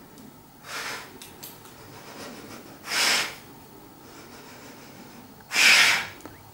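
A woman breathing forcefully: three noisy breaths about two and a half seconds apart, each louder than the last.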